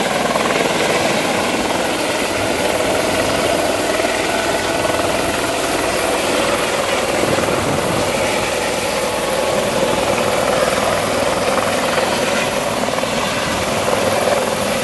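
Airbus H130 (Eurocopter EC130) helicopter hovering low as it comes in to land, its rotor running with a steady, unbroken noise and a thin high whine above it.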